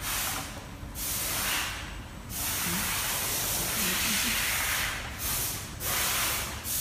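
Compressed air hissing from a pneumatic welding machine, in several bursts with short breaks between them, one lasting nearly three seconds.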